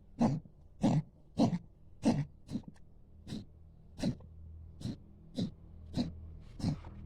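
A cat coughing in a rapid series of about eleven short hacks, roughly one and a half a second, loudest at first and fainter towards the end: a sign of respiratory inflammation.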